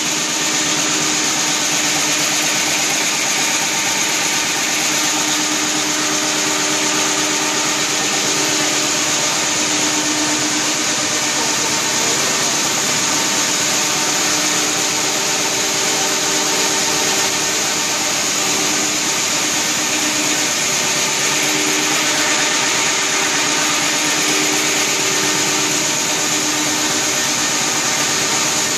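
Halm Jet envelope offset printing press running: a loud, steady mechanical whirr and hiss, with a faint hum that comes and goes.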